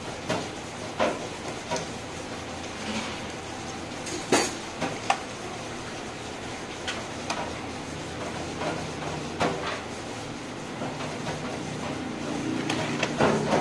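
Commercial kitchen clatter: scattered knocks and clinks of metal pans and utensils over steady background noise, the loudest a sharp knock about four seconds in.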